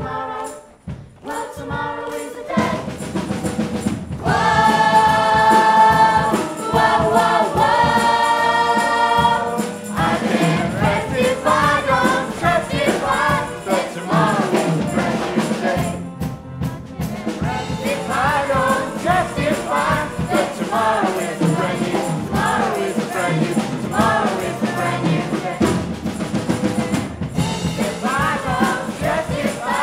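A large children's chorus singing with musical accompaniment, holding long sustained notes from about four seconds in and then carrying on in rhythm over a beat.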